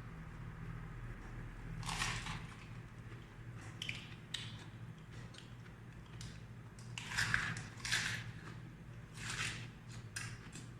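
Close-up mouth sounds of chewing raw vegetables: irregular crisp crunches, a few louder ones in bunches, over a steady low electrical hum.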